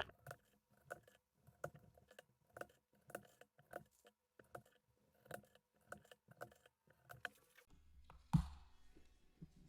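Mechanical keyboard switches (Gateron Rubys) being pressed one by one into the GT60 plate and PCB, a sharp click with each one, about two a second. The clicks stop after about seven seconds, and a single louder knock follows near the end.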